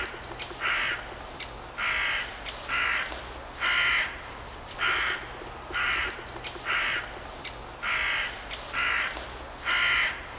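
A crow cawing over and over, about one call a second.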